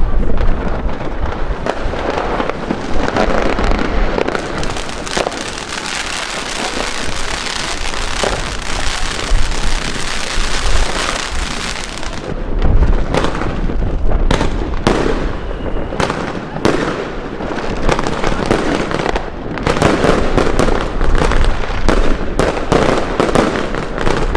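A ground fountain firework hissing and crackling as it sprays sparks, for about the first twelve seconds. Then a quick series of sharp bangs and cracks from aerial fireworks, coming thicker toward the end.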